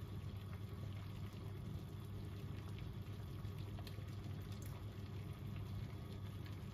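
Water simmering in a stainless steel double-boiler pot, melting soy wax in a pouring pitcher set in it: a steady, soft bubbling hiss over a low hum.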